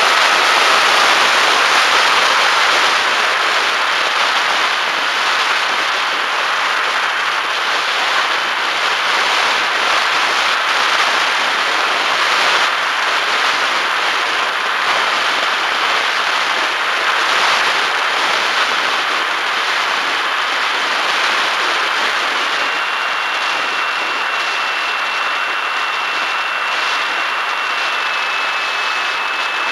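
Wind rushing over a Bixler 1.1 electric FPV plane in flight, with the thin whine of its brushless motor and pusher propeller on top. The whine steps down in pitch twice near the end.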